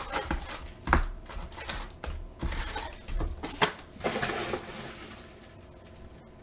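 Trading cards and their packaging being handled: irregular crinkling and rustling with sharp clicks and taps, loudest about a second in and again between three and four seconds in, quieter near the end.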